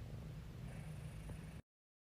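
Cat purring close to the microphone, a steady low rumble that cuts off abruptly about one and a half seconds in.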